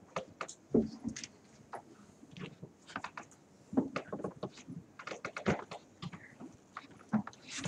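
Irregular light clicks, taps and soft knocks: handling noise on the panel table, with a few louder knocks about a second in, around four seconds in and near six seconds.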